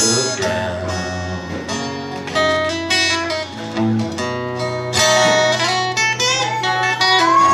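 Acoustic guitar strummed in a steady song, with a man singing over it from about halfway through, amplified through a small PA.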